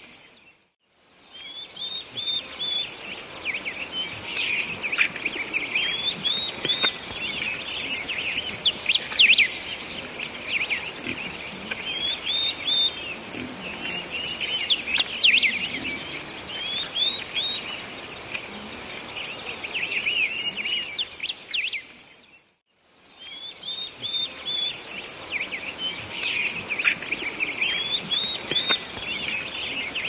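Recorded birdsong ambience: small birds chirping and trilling over a steady outdoor hiss. The track fades to silence briefly about a second in and again about three-quarters of the way through, then returns with the same chirps.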